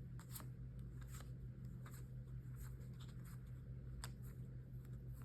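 Trading cards being handled and flipped one after another: soft, irregular flicks and slides of card stock, over a steady low hum.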